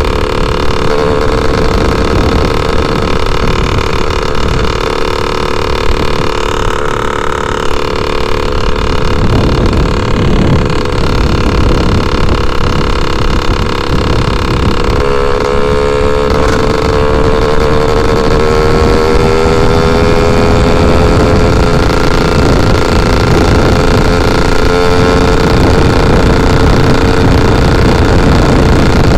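Yamaha F1ZR single-cylinder two-stroke motorcycle engine running at steady cruising speed, with wind rushing over the microphone. About halfway through, the engine note climbs slowly as the bike speeds up.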